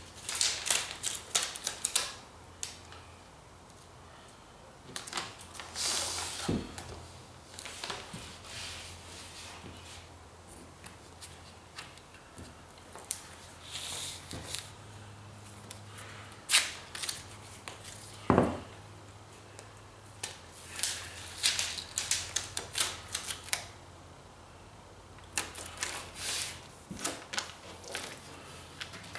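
Aluminium foil tape being peeled off its backing and pressed and smoothed along a box seam: bursts of crinkling and crackling a few seconds apart, with quiet stretches between and a couple of sharper knocks against the box.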